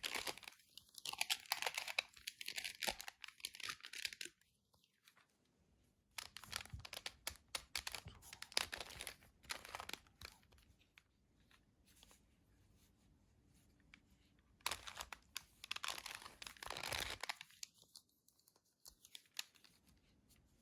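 A 2x2 Rubik's cube being twisted quickly to scramble it: its plastic layers click and rattle in three runs of rapid turning, with quiet pauses between.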